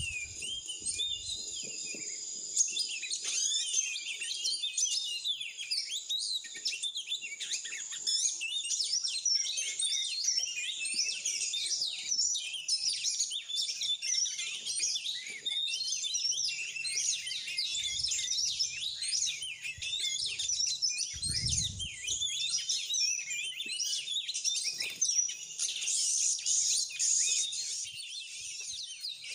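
Songbirds chirping and twittering in a dense, rapid, high-pitched stream that starts abruptly.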